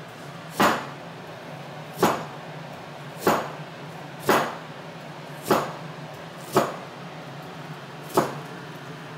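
Kitchen knife chopping through a white root vegetable down onto a plastic cutting board: seven sharp knocks, one every second or so.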